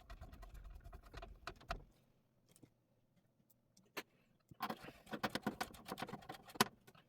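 Screwdriver and small metal screws clicking and rattling as motherboard screws are driven into the PC case, in two spells of quick clicks with a short pause between.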